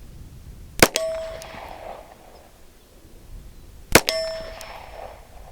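Two shots from a Browning Buck Mark .22 pistol firing standard-velocity rounds, about three seconds apart. Each shot is followed a split second later by the clang of the bullet hitting a steel target, which rings on briefly with a steady tone.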